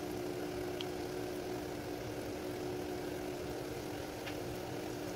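Kebab patty shallow-frying in hot oil in a pan: a steady, quiet sizzle with a couple of faint pops, over a steady low hum.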